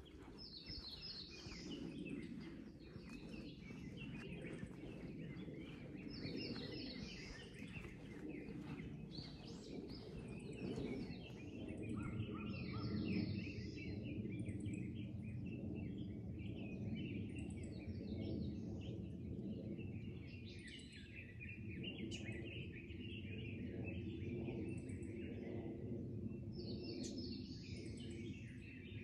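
Several small woodland birds chirping and singing in overlapping short phrases, over a steady low rumble. Footsteps on the path tick along during the first ten seconds or so.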